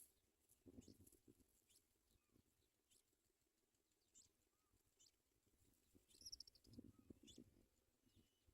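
Faint, short, high chirps and ticks of small birds at a nest, with soft rustling about a second in and again around seven seconds. There is one brief buzzy call about six seconds in.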